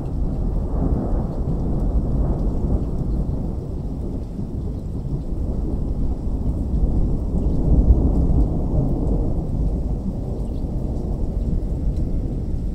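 Thunder in a rainstorm: a long low rolling rumble that swells in waves, loudest about eight seconds in and easing off near the end, with rain faintly beneath it.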